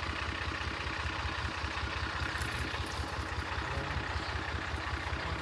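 Engine of harvest farm machinery running steadily, with a fast, even low pulsing.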